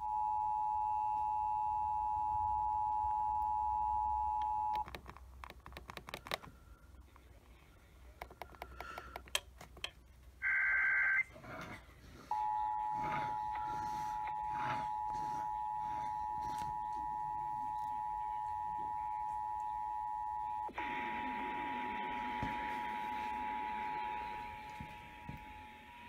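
Emergency Alert System two-tone attention signal from a radio: two steady tones, near 850 and 960 Hz, sounding together, which cut off after about five seconds. Scattered clicks and crackle follow, then a short burst of higher-pitched SAME data tones about ten seconds in. A second two-tone attention signal starts about twelve seconds in, is joined by static hiss around twenty-one seconds, and fades near the end.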